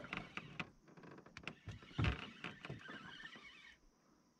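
Fishing reel being cranked while a hooked bass is reeled in: small clicks and a crackly winding, with a knock about two seconds in; the sound drops out abruptly near the end.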